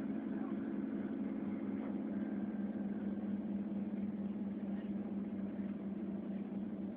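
Steady low hum of a transit vehicle running, even throughout with no change in pitch.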